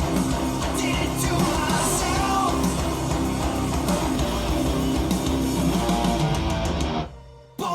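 Rock-pop song with electric guitar, played back through a pair of bookshelf hi-fi speakers. It cuts out abruptly near the end.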